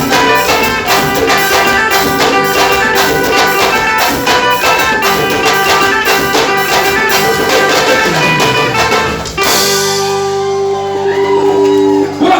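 Reisado band music: drums keep a brisk, even beat under brass. About nine and a half seconds in the drums stop and the brass holds one long final chord.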